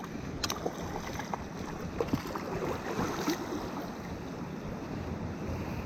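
Steady rush of flowing river water, with a few short sharp ticks over it.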